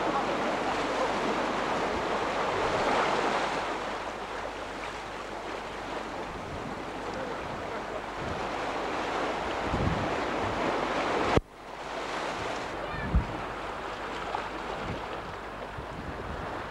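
Sea waves breaking and washing over the rocks of a breakwater, heard as a steady rushing surf with wind buffeting the microphone. About eleven seconds in, a sharp click and a brief dip where the recording cuts, then a short thump a couple of seconds later.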